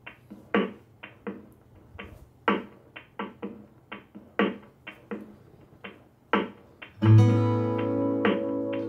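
Recorded acoustic guitar music played back over a pair of Tannoy Legacy Cheviot loudspeakers. It opens with a run of short, sharp percussive notes, then a full strummed chord rings out about seven seconds in.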